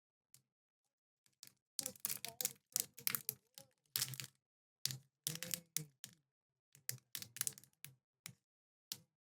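Mechanical keyboard keys clicking and clacking in quick, irregular runs, like typing, with a couple of single clicks before the runs start.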